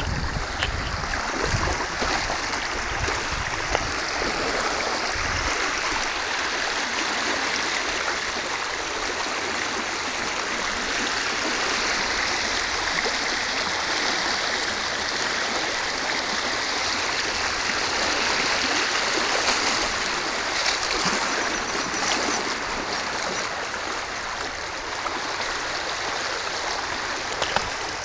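Fast-flowing floodwater rushing and churning in a steady, continuous flow.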